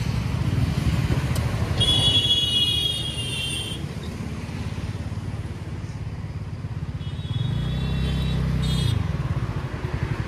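A TVS Ntorq 125 scooter's engine and road noise while riding in traffic, with a steady low rumble throughout. A high-pitched, ringing tone sounds about two seconds in, and another around seven seconds, as a heavier engine passes close by.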